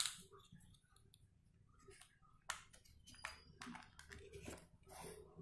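Faint, scattered clicks and small knocks of plastic building blocks as a hand handles a toy hammer built from them.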